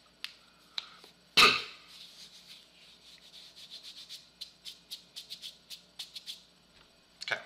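Scattered clicks of a computer keyboard and mouse, becoming a quicker run of clicks from about four seconds in, with one louder short noise about a second and a half in.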